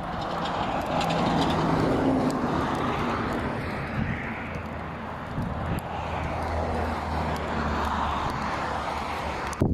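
Road traffic: vehicles passing on a highway, with tyre noise and engine hum that swell and fade.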